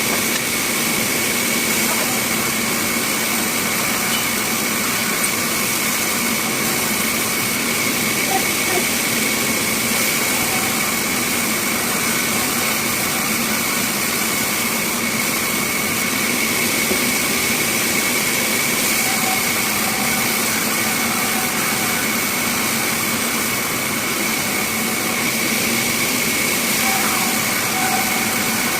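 Bandsaw running steadily, a constant high whine and a lower hum over a dense hiss.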